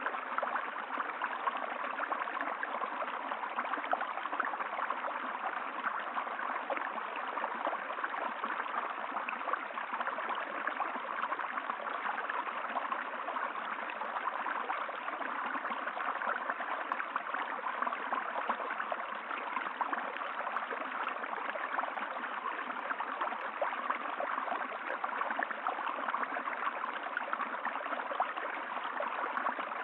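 Running water of a stream, a steady rushing and gurgling flow.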